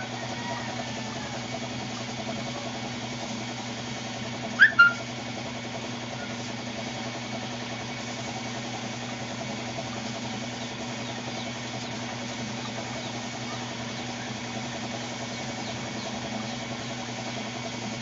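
Air compressor running steadily. About four and a half seconds in, two short, loud chirps.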